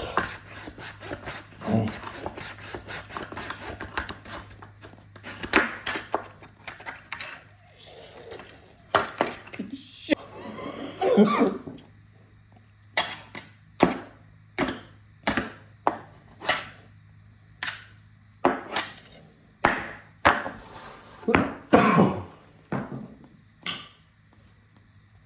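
Hand saw cutting wood in a series of strokes, quick and close together at first, later slower and regular at about one stroke a second.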